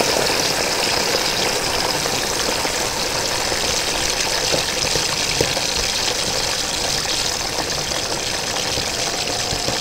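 Pieces of jengkol (dogfruit) deep-frying in hot oil in a wok: a steady sizzle with a few small pops.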